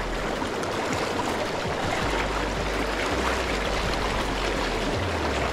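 Rushing stream water: a steady, even wash of current flowing over a rocky riffle.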